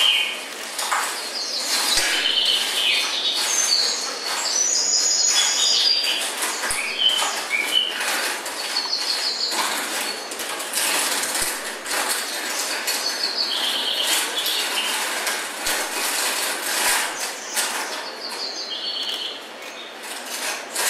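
Show soundtrack of high bird-like chirping and fluttering, with rapid clicking throughout and nothing in the bass.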